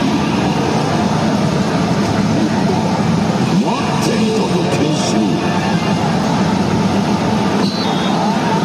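Music and sound effects from a pachislot machine over a dense, continuous hall din, with a few gliding tones through the middle.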